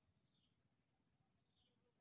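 Near silence: faint forest ambience, with a bird repeating a short falling call about once a second and a thin steady high whine behind it.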